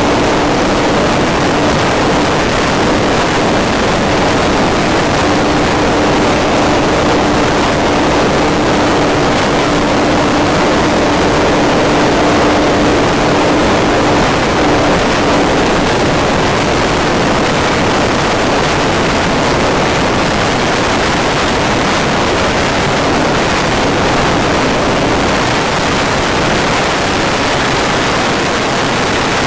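Steady rushing noise from an FPV model plane in powered flight: wind and the electric motor's propeller, with a steady low hum that fades out about halfway through.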